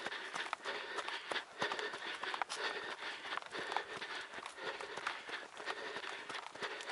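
Trail runner's footsteps on a dirt trail, a quick, irregular patter of foot strikes.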